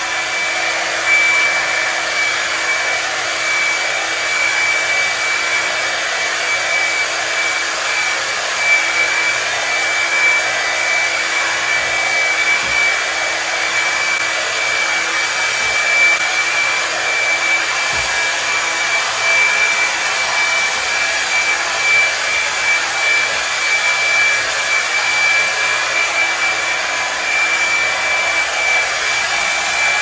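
Revlon One-Step hot-air brush dryer running on its low setting: a steady blowing hiss with a thin, high motor whine.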